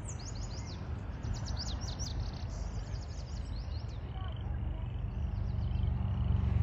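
Birds chirping: many quick, high, falling notes in rapid succession, with a few short buzzy trills among them. Beneath them runs a steady low rumble that grows louder near the end.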